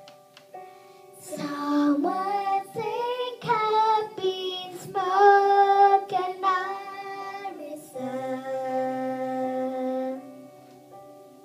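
A young girl singing into a karaoke microphone over a backing track from a children's karaoke machine. Her voice comes in about a second in and stops near the end, leaving the backing music playing alone.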